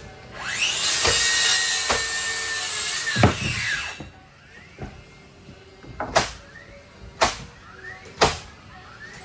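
A power saw spins up, cuts into timber for about three seconds and winds down. It is followed by a series of sharp knocks about once a second.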